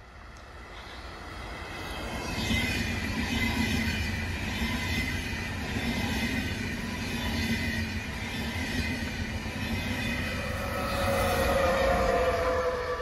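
ÖBB Railjet passenger train passing at speed: a rushing, rolling noise builds over the first two seconds and holds steady as the coaches go by. Near the end its class 1116 Taurus electric locomotive passes, loudest of all, with a whining tone that drops slightly in pitch.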